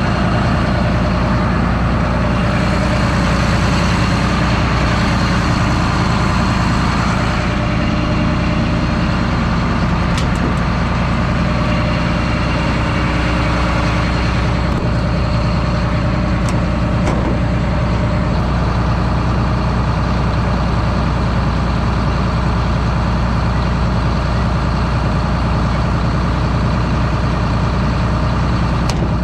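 A John Deere combine's diesel engine running steadily at idle, with no change in pitch or level.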